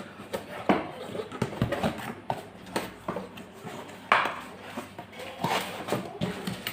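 Irregular clicks and knocks of hard objects being handled and set down, with no motor running.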